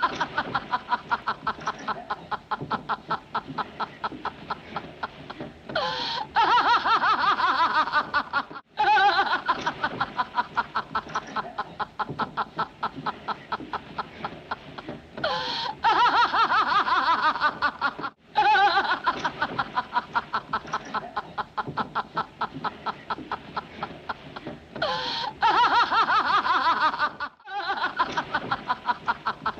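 A woman's loud laugh, a long run of rapid pulses. The same laugh plays three times over, with a short break before each restart.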